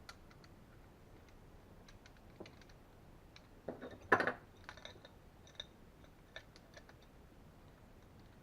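Small metallic clicks and ticks of metal hose fittings being handled and threaded together by hand, with one louder short clatter about four seconds in.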